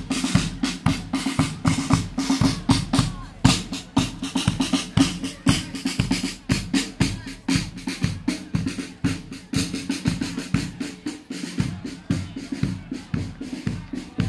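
Marching brass band playing, its snare and bass drums keeping a steady march beat under the brass, with crowd voices around it.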